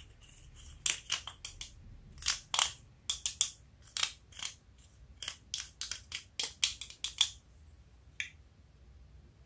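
Pressed eyeshadow being scraped and broken out of a clear plastic palette pan with a pointed stick: an irregular run of sharp crunching scrapes, several a second. They stop about seven seconds in, with one last one shortly after.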